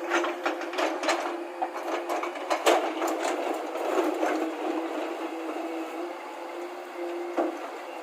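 Steady mechanical hum with irregular rattling and knocking over it, the knocks thinning out about halfway through.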